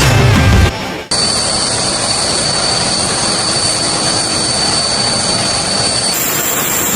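Background music cuts off in the first second. Then aircraft turbine engines run steadily, with a high whine over a broad rushing noise; the whine changes pitch about six seconds in.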